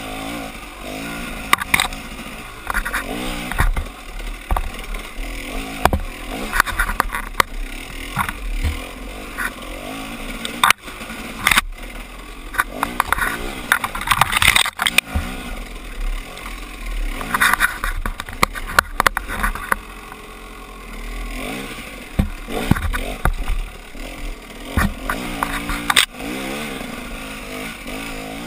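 Dirt bike engine revving up and down over and over, with branches and brush scraping and slapping against the bike and rider and frequent sharp knocks from the rough trail.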